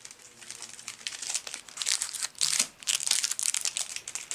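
Yu-Gi-Oh Dark Neostorm booster pack's foil wrapper crinkling as it is handled, a dense run of crackles that grows louder about a second in.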